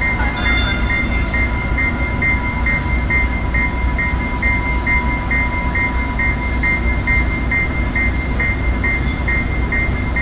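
A train bell ringing steadily, about three rings a second, over the low, steady rumble of the idling diesel commuter train.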